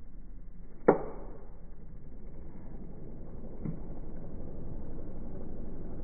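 Palm Leaf portable fan running, heard slowed down in slow motion as a steady whir with no high end. A sharp click sounds about a second in and a fainter one a few seconds later, and the whir grows slightly louder in the second half.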